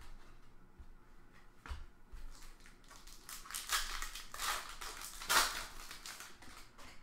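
Foil trading-card pack wrapper crinkling and tearing as it is opened by hand, loudest about five seconds in, after a couple of light taps.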